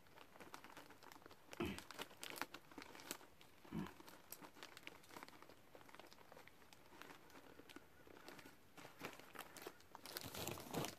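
Thin plastic bag of puffed rice snacks crinkling with many light crackles as it is twisted and tied shut. Near the end there is a louder rustle.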